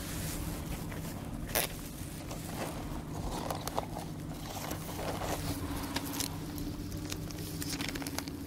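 Small clicks and rustles of gloved hands handling a brass soil-sample tube and a plastic sample bag, with one sharper click about a second and a half in, over a steady low machine hum.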